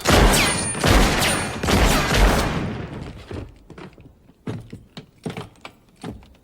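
A quick volley of revolver gunshots, several loud echoing blasts within about two and a half seconds, followed by lighter clicks and knocks.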